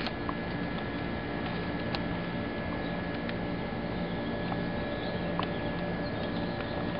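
Steady background noise with a low hum and a thin high tone, and a few faint ticks scattered through it.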